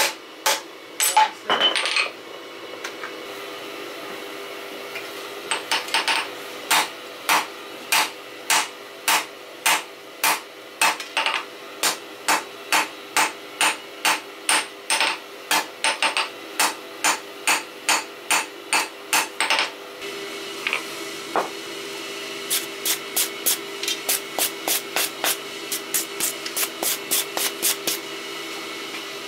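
Hand hammer striking red-hot 32 mm steel rebar on an anvil while drawing the end out to a taper. Steady blows come about two a second, a little faster near the end, with a pause of a few seconds early on.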